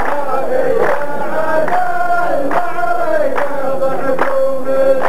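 Rows of men chanting a qalta verse in unison as one long, drawn-out sung line, with a hand clap from all of them together about once a second.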